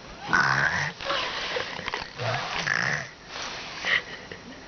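A small child imitating snoring: three snore-like noises of about a second each in quick succession, then a short one.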